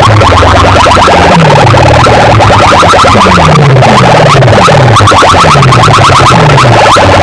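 Very loud electronic DJ music played through a large sound system, with deep bass sweeps that fall in pitch about once a second over a fast, rattling beat.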